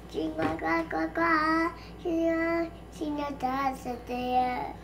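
A young girl singing solo, a slow melody of held notes in short phrases with brief breaths between them.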